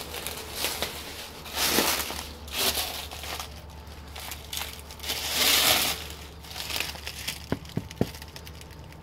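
Footsteps crunching and rustling through dry fallen leaves in several bursts, with a few sharp snaps near the end.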